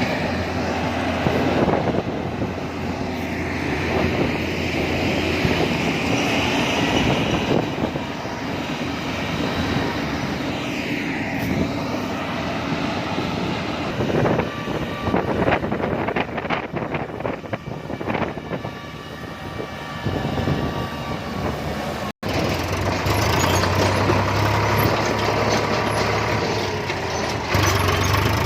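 Heavy farm machinery engines running steadily with a low hum, with irregular clattering for several seconds in the middle and a brief cut about two-thirds through.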